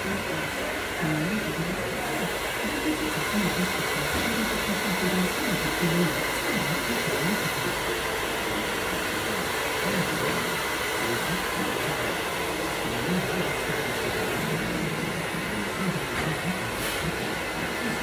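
Hand-held hair dryer running steadily, blowing over a client's hair during a blow-dry.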